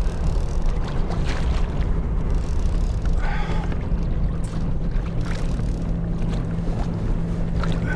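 Wind buffeting the microphone in a steady low rumble out on open water, with a faint steady low hum underneath.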